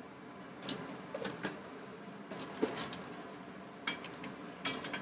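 Spoon and wooden spatula clicking and scraping against a steel pot as salt is added and thick mutton curry masala is stirred. There are a few scattered sharp clicks, the loudest group near the end.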